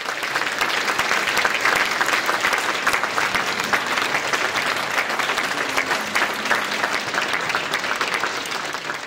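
Audience applauding: many hands clapping together, tapering off near the end.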